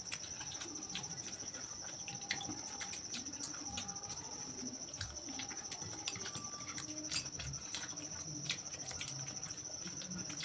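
Quiet eating at a table: scattered light clicks and taps of fingers and a spoon against plates and bowls, over a steady high-pitched trill.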